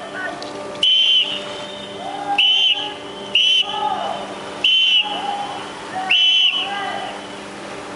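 A whistle blown in five short, shrill blasts, spaced one to one and a half seconds apart, over a steady low hum.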